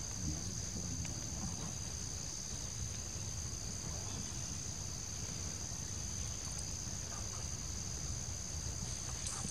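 Steady high-pitched insect chorus, one unbroken drone, over a low background rumble.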